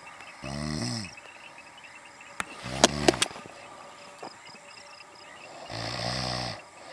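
A woman snoring in her sleep: three snores, each under a second long, about two and a half seconds apart, the middle one with a few sharp clicks.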